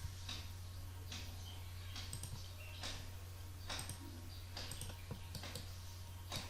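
Irregular computer mouse clicks, about a dozen scattered sharp clicks, over a steady low electrical hum.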